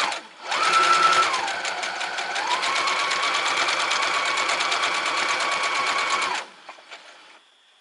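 Brother RX3340 electric sewing machine stitching through fabric at speed: a fast, even run of needle strokes over the motor's whine. The whine dips in pitch for about a second, then holds steady. The machine stops about six and a half seconds in, followed by faint handling clicks.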